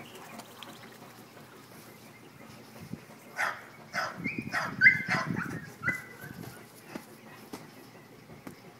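Doberman giving a short run of barks and high-pitched whining yelps, clustered a few seconds in.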